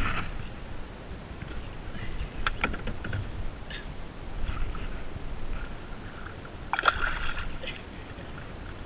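Water sloshing and splashing at the side of a small boat as a hooked baby tarpon is handled at the surface, with a few sharp splashes, the loudest about seven seconds in, over a steady low rumble.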